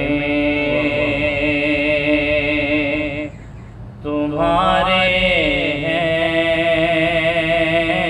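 A man chanting a salawat (durood) refrain in long, held, ornamented notes. There are two drawn-out phrases, with a short break a little after three seconds in.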